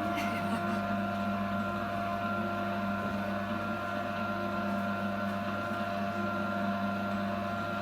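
Electric commercial meat grinder's motor running steadily at constant speed, an even mechanical hum with no change in pitch.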